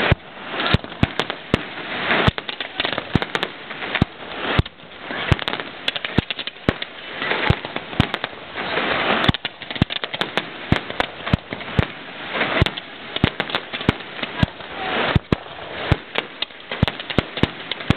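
Aerial fireworks display: shells and rockets bursting in a dense, irregular run of sharp bangs and pops over a steady crackling hiss.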